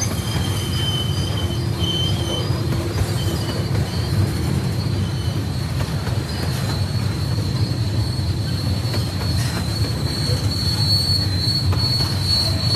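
Freight cars rolling slowly past with a steady rumble of wheels on rail and a high, thin wheel squeal. The squeal wavers in the first couple of seconds, then settles into a steady, higher squeal from about halfway through that grows stronger toward the end.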